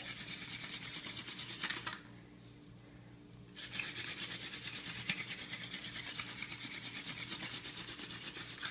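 Hand-drill friction fire: a mullein spindle spun back and forth between the palms, grinding into the notch of a willow hearthboard with a rhythmic scratchy rasp, about three strokes a second. It pauses for about a second and a half near two seconds in, then resumes. The drilling is building up brown dust in the notch on the way to an ember.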